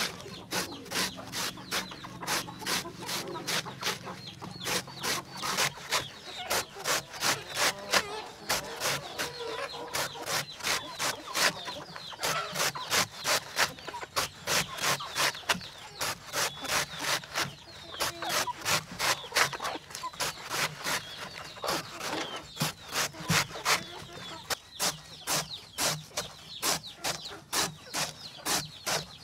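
Large knife slicing a banana tree trunk into thin rounds: a steady rhythm of crisp cuts through the wet, fibrous stem, about three a second.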